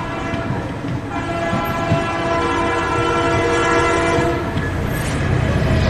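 Train horn sounding one long, steady blast from about a second in until just past four seconds, over the continuous rumble of a moving train.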